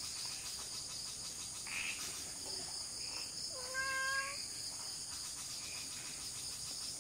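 Evening chorus of crickets and other insects, a steady high-pitched trill, with one drawn-out animal call about halfway through.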